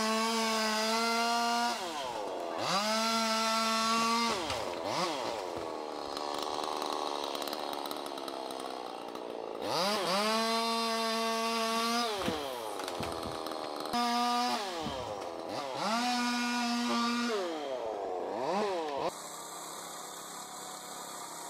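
Two-stroke chainsaw revved to full throttle in repeated bursts of one to two seconds, its pitch sliding down between bursts, with a lower, wavering stretch a few seconds in. About nineteen seconds in it gives way to a quieter, steadier sound.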